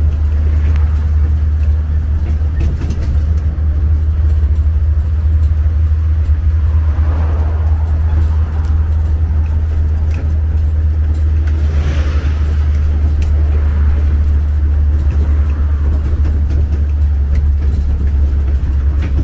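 Steady low engine drone of a road vehicle, heard from on board while riding.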